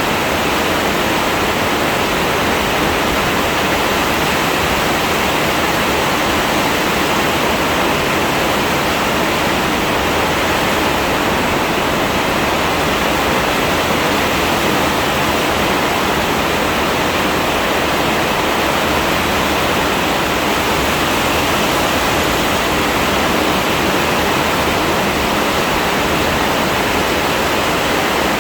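Heavy rain falling as a loud, steady, even hiss that does not change.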